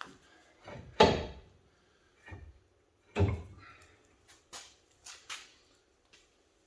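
Several metal clunks and knocks as a front axle shaft is worked loose past the steering knuckle and control arm. The heaviest comes about a second in and another at about three seconds, each ringing briefly, followed by a few lighter taps.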